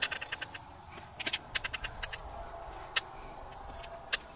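A paintbrush mixing dark gouache in a metal palette, with quick runs of small clicks and taps as it works the paint and a couple of single sharper clicks later.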